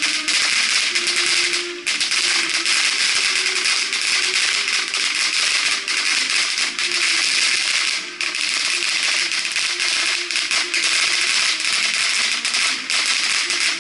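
Firework ground effects hissing steadily with dense crackling throughout, a bright fountain burning near the end, over background music.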